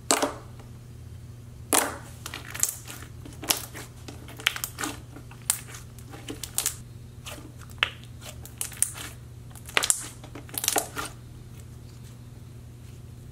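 Metallic gold slime squished, poked and stretched by hand, giving an irregular string of wet clicks and pops that stops about 11 seconds in. The slime has been stiffened with added activator.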